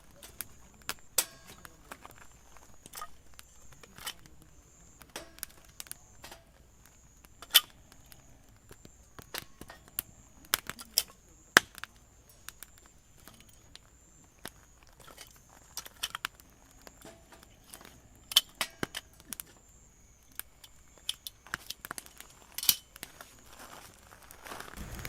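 Campfire wood crackling with sharp, irregular pops, over a faint high insect trill that pulses on and off.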